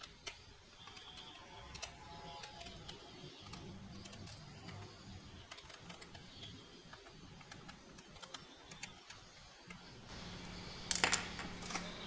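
Small clicks and taps of hands handling a laptop's plastic base, with a louder cluster of clicks near the end.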